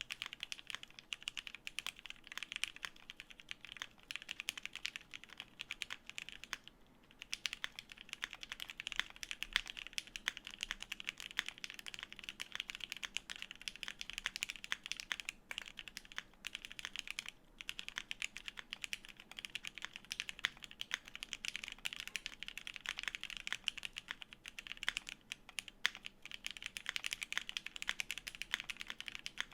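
Continuous typing on a Cannonkeys Brutal60 mechanical keyboard: a dense stream of key clacks from lubed new-old-stock vintage Cherry MX Black linear switches on 67 g springs, GMK keycaps, FR4 plate in an aluminium case. The typing breaks off briefly about seven seconds in.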